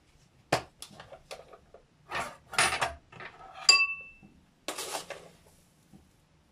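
Metal spoon scooping sugar from a plastic container and clinking against the dishes: a few light clicks, a scraping rustle about two seconds in, one sharp ringing clink near the middle, and another short scrape about five seconds in.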